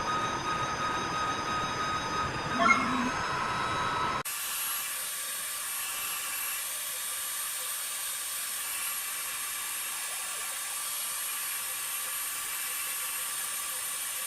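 A CNC machine running with a steady whine over noise and a brief louder clatter about three seconds in. About four seconds in it cuts abruptly to a steadier, thinner high hiss.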